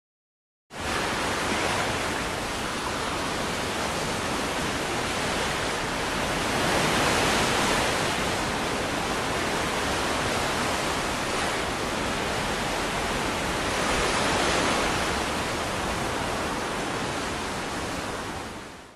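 Steady wash of ocean waves, an even hiss that swells twice and cuts off abruptly at the end.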